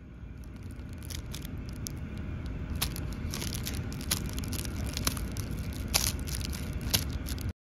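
Clear plastic wrappers of two ice pops crinkling and crackling as they are handled, in a string of sharp crackles over a low steady rumble.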